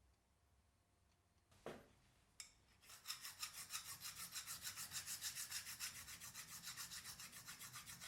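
A single knock and a click, then from about three seconds in, fast back-and-forth hand rasping strokes on a workpiece, about five a second, as in filing or abrading during restoration.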